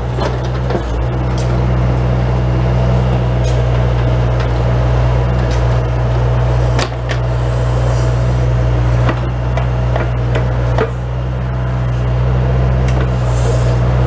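Bobcat S185 skid steer loader's diesel engine running steadily while it powers a Bobcat 911 backhoe attachment digging, with scattered clunks and scrapes from the boom and bucket working the dirt. The engine note dips briefly twice.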